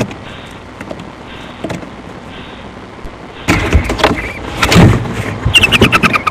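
Barn owl in a wooden nest box: faint hiss from the box microphone with a few small clicks, then, about three and a half seconds in, loud scraping and scuffling close to the microphone. Near the end comes a fast series of clicking, chittering pulses.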